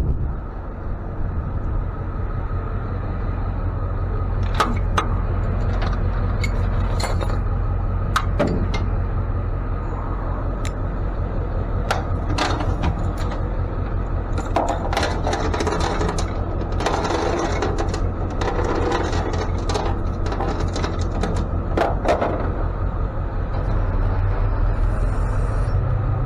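A truck engine idling steadily, with repeated sharp metal clanks and rattles of towing gear being handled, thickest between about 12 and 22 seconds in.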